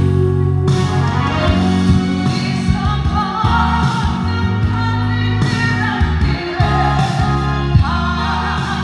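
A singer sings a Korean ballad over an instrumental backing. The voice comes in about a second and a half in.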